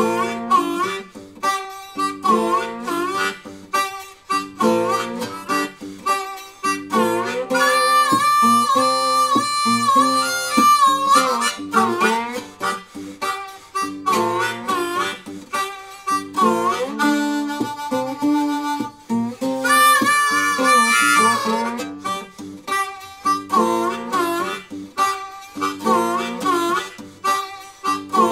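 Blues music led by a harmonica over acoustic guitar, the harmonica holding long notes twice.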